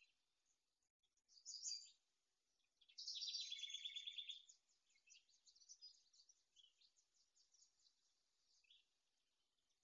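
Faint songs of small birds in a marsh: a short high phrase, then a rapid trill of quickly repeated notes about three seconds in, then scattered chirps.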